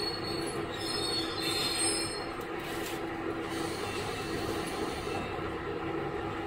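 KiHa 11 diesel railcar with its Cummins engine, heard from inside the car while running. A steady low drone runs throughout. The wheels squeal high-pitched against the rails from about half a second in until about two and a half seconds, and a brighter hiss follows in the middle.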